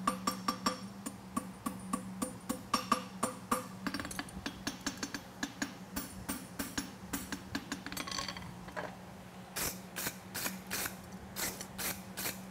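Farrier's hammer striking a steel tong rein on an anvil, about three ringing blows a second, then lighter, quicker taps and a few sharper blows near the end.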